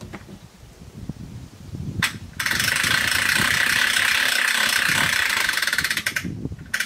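A hand-worked ratchet mechanism clicking very fast and evenly for about four seconds, with single sharp clicks just before and just after.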